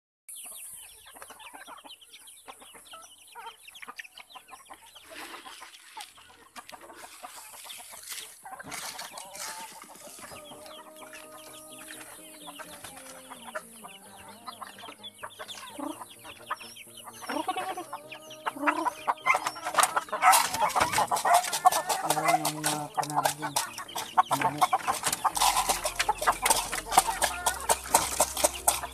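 Free-range chickens clucking in a farmyard, with a steady high hiss under the first two-thirds. Near the end, dense rapid clicking and rustling grows louder over the clucking.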